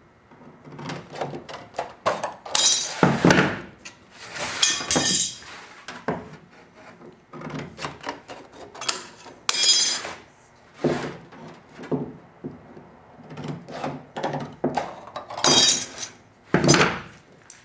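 Hand tin snips clipping the corners off a thin sheet-metal panel: sharp metallic snips and rattles of the flexing sheet, coming in several short clusters with pauses between.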